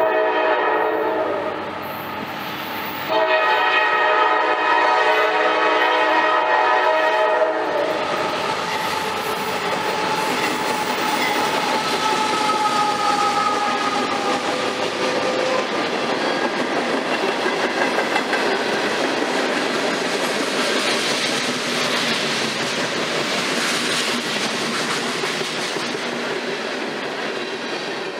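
Freight train's diesel locomotive horn: a short multi-note blast, then a long one about three seconds in, the end of a grade-crossing signal. The train then rolls past with steady wheel and rail noise and a brief squeal about halfway through.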